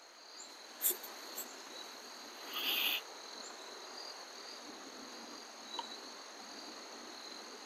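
Crickets chirping faintly in a steady high trill. A short rustle-like hiss comes about two and a half seconds in, and a small click about a second in.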